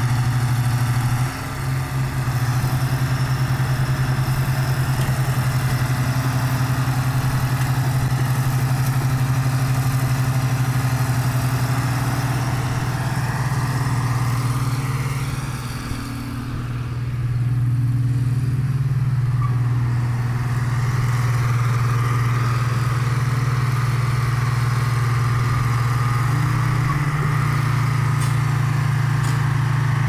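A heavy machine's engine running steadily throughout, dipping briefly in loudness about sixteen seconds in.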